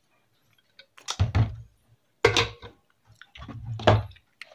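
A person drinking water from a bottle close to the microphone: three loud gulps, about a second apart.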